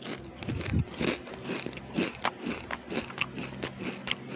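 Close-up crunching and chewing of Lay's Stax truffle-flavoured potato crisps: an uneven run of sharp crunches, several a second.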